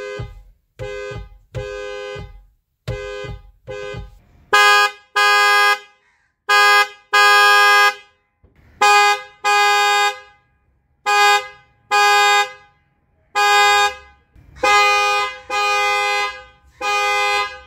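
Kia Sportage's factory-fitted car horn honking over and over, in short and longer blasts. Each blast is a steady two-note tone. The first few honks are softer, and the rest are louder from about four and a half seconds in.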